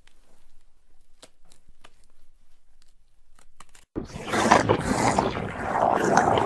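Two horror sound effects in a row: faint, scattered crackles and ticks, then about four seconds in a loud rushing noise cuts in suddenly and keeps swelling.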